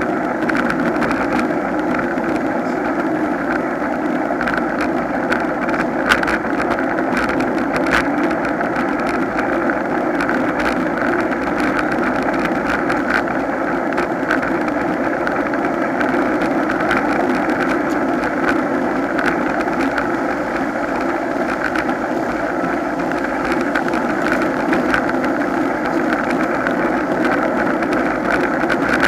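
Steady wind rush and road-tyre noise on the microphone of a camera riding on a road bike at race speed in a group of cyclists, with a few sharp clicks.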